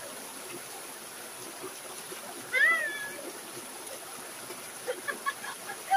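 Mountain stream water rushing and splashing steadily over rocks in a small cascade. About two and a half seconds in, a short high call rises and falls, louder than the water, and a few short chirps come near the end.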